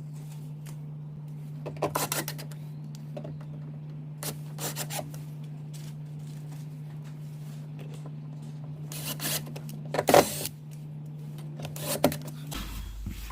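Parts being handled and fitted into a car door: scattered rubbing, scraping and clicking, with the loudest knocks about ten seconds in, over a steady low hum that drops lower near the end.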